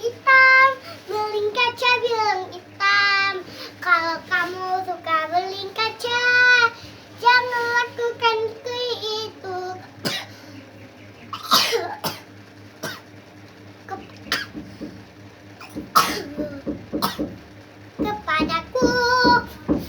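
A little girl singing in a high child's voice for about ten seconds, then coughing several times, the coughs spaced a second or two apart, before singing again near the end.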